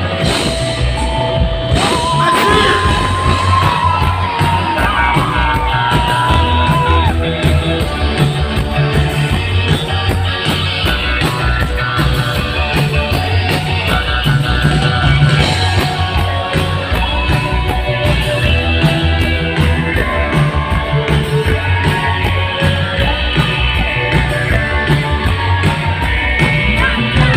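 Live rock band performing in a large hall: a steady drum and bass beat with electric guitars and a male lead vocal. About two seconds in, a high note is held for roughly five seconds.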